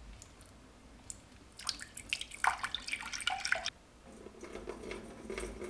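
Distilled water poured from a plastic jug into a glass measuring cup, coming in uneven splashes. About four seconds in, a steadier trickle begins as water is poured from the cup into the laser chiller's fill opening.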